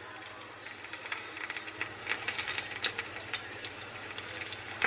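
A rolled chicken taco frying in shallow hot oil in a pan: a steady sizzle with many quick crackling pops, which get busier about two seconds in.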